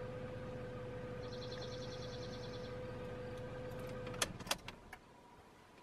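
A car engine idling with a steady hum, which cuts out about four seconds in with a few sharp clicks, leaving quiet outdoor background. A short, rapid, high chirping trill sounds about a second in.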